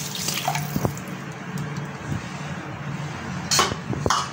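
Water poured from a glass cup into a pan, splashing and stopping about half a second in. A low steady hum follows, and near the end there are two short sharp clatters of glassware or utensils.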